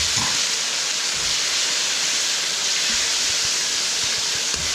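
Onions and garlic sizzling in hot oil in a wok, a steady hiss, with a few soft knocks from the stirring.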